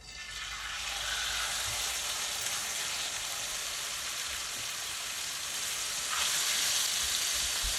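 Marinated chicken thighs sizzling as they sear in hot olive oil in a pan on high heat. The sizzle builds over the first second as the meat goes in and turns louder about six seconds in.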